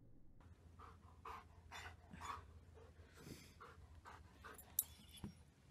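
A German shepherd panting softly, about two breaths a second, with one sharp click near the end.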